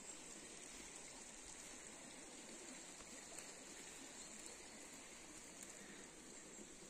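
Near silence: a faint, steady outdoor background hiss with nothing distinct in it.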